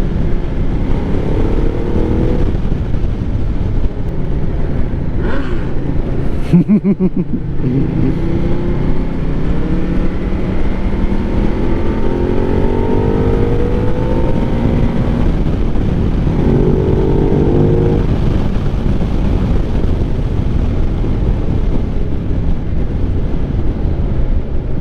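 Ducati Multistrada 1200's L-twin engine pulling hard under way, its pitch rising several times as it climbs through the revs, under steady wind rush. A short, loud buffet comes about six and a half seconds in.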